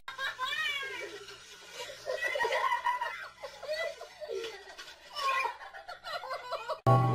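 Children laughing and giggling in broken bouts. Music starts abruptly near the end.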